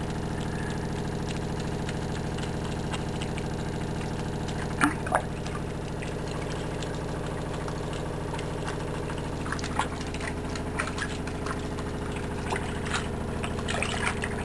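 Water sloshing and splashing in a sink as a small kitten is bathed, with a few sharp knocks about five and ten seconds in, over a steady mechanical hum.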